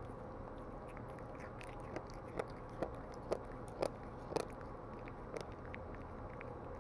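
Bengal cat chewing soft food, making a run of sharp smacking clicks about two a second, mostly in the middle of the stretch.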